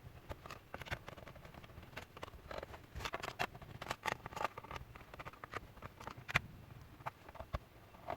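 Faint irregular clicks, taps and light scrapes of a small screwdriver working screws out of a laptop's plastic underside.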